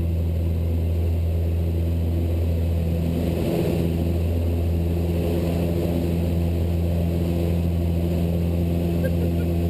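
Cessna 172 Skyhawk's four-cylinder piston engine and propeller at full takeoff power on the takeoff roll, a steady low drone with a brief wobble in tone a few seconds in.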